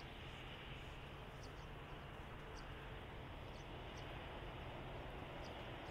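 Faint outdoor background: a steady low rumble with short, high bird chirps about once a second.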